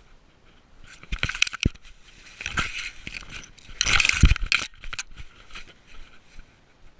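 Dry grass rustling and crunching, with sharp knocks and clinks from the collar-mounted GoPro, as a cat bounds through tall grass onto a gravel road. The noise comes in irregular bursts from about a second in, loudest around four seconds in, and fades near the end.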